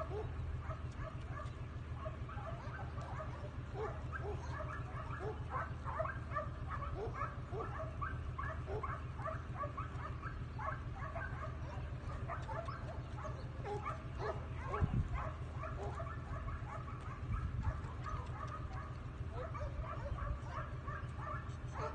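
Dogs whining and yipping over and over in short, high calls, over a steady low rumble.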